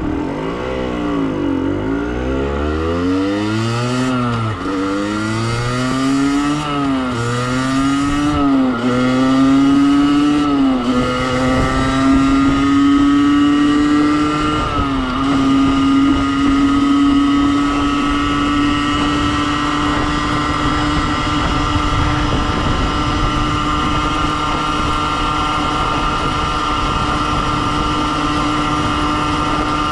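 Beta RR50's 50cc two-stroke engine, with its rev limiter disconnected, accelerating hard. It revs up and drops back at each upshift, about every couple of seconds, through the gears. It then holds a steady high-revving drone at full throttle, with one brief dip about halfway through.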